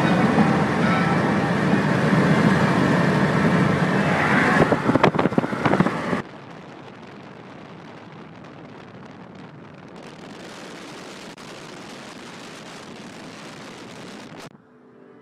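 Car driving on a highway, heard from inside the cabin: road and wind noise, loud for about the first six seconds, then dropping abruptly to a quieter steady hiss.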